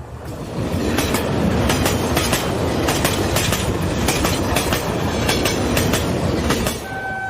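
Train sound effect: a train rolling past with a steady rumble and rapid clacking of the wheels over rail joints. It swells in the first second and eases near the end, when a steady horn note begins to sound.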